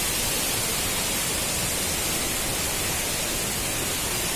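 Steady hiss of rushing water from a hill stream or small waterfall, even and unbroken.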